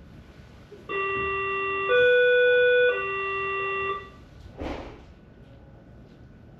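Berlin S-Bahn class 481 door-closing warning signal: three steady tones about a second each, low, higher and louder, then low again, warning that the doors are about to shut. About half a second after the tones end comes a short burst of noise as the doors close.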